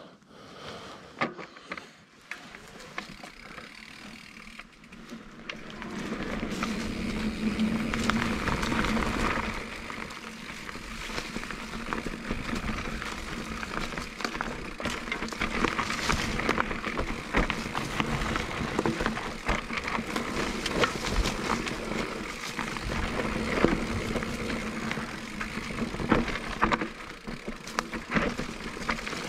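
Electric mountain bike riding down a dirt forest trail: tyres rolling over soil, roots and leaves, with many clicks and rattles from the bike and wind on the microphone. It is quieter for the first few seconds, then grows louder as the bike picks up speed.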